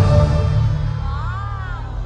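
Music with a deep, steady bass and held tones, slowly fading; about a second in, a short melodic line slides up and back down.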